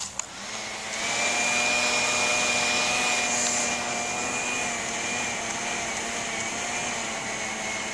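Handheld hair dryer switched on and running on its cool setting. The fan comes up to speed over about the first second, then runs steadily with a thin high whine over the rush of air.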